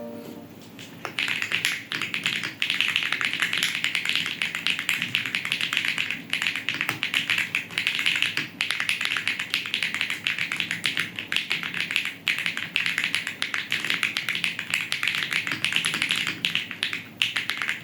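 Fast, continuous typing on a mechanical keyboard with Akko V3 Cream Blue tactile switches (Answer65 build): a dense stream of key clacks that starts about a second in.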